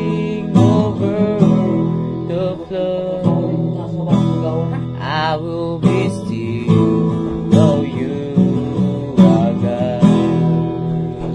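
Acoustic guitar strummed in sustained chords, with a voice singing a few drawn-out notes over it.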